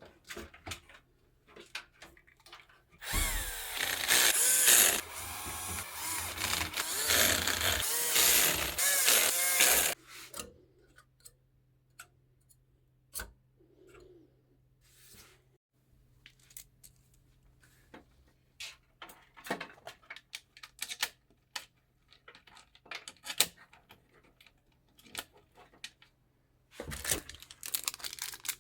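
A small power tool, such as an electric screwdriver, runs for several seconds with its pitch wavering. Scattered clicks and taps of small hardware being handled follow, and another short burst of noise comes near the end.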